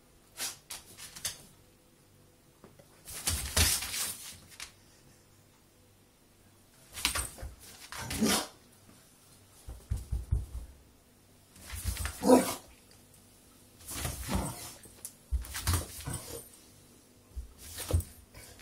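A beagle giving short barks and grumbling vocal sounds in separate bursts every two seconds or so.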